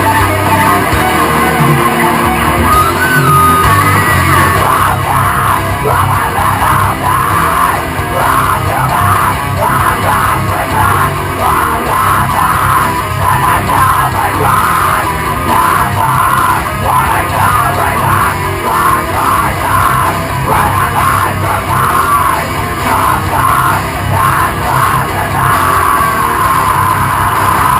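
Loud hard rock song with yelled vocals over heavy, driving instruments.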